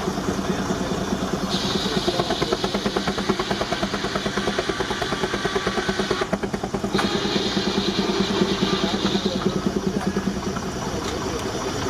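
19-65 Baker Uniflow steam traction engine running under belt load with rapid, even exhaust beats, driving a sawmill. A higher hissing from the saw cutting wood comes in about a second and a half in, breaks off briefly in the middle, and stops a few seconds before the end.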